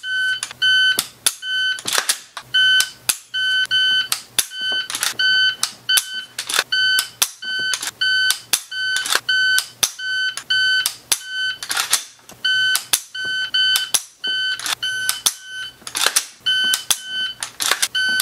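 Electronic shot timer giving a string of short high beeps, about two a second, during AR-15 dry-fire reps. Now and then a sharp click from the rifle's dry-fired trigger cuts in among them.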